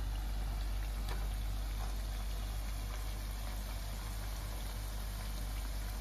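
Potato strips deep-frying in hot oil in a wok, a steady sizzling and bubbling, with a few light clicks of the stirring utensil against the pan. Under it runs a steady low hum.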